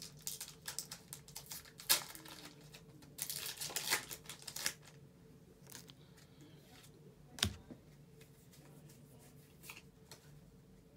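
Foil booster-pack wrapper crinkling and tearing open, with trading cards handled. Dense rustling for about the first half, then a single sharp tap about seven seconds in.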